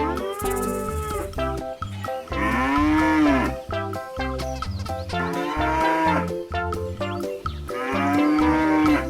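A cow mooing four times, each long call rising and then falling in pitch, over background music with a steady beat.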